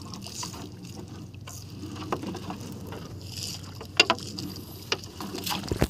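Small wooden fishing banca's hull and gear knocking a few sharp times over a steady low rumble and water noise while a gill net is hauled aboard by hand.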